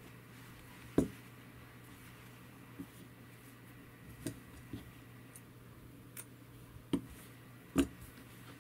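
Handling noise from crafting: about six short soft knocks and clicks as yarn, scissors and a stuffed crochet piece are handled and set down on a cloth-covered table. The loudest knocks come about a second in and near the end, over a faint low hum.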